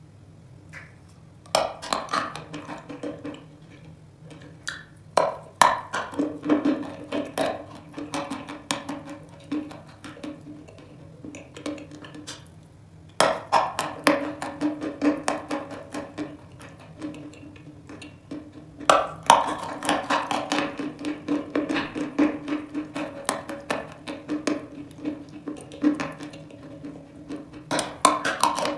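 Dry chalk crunching close up as it is bitten and chewed. There are about five sharp bites, each followed by a run of rapid dry crunches that thin out as the piece is chewed.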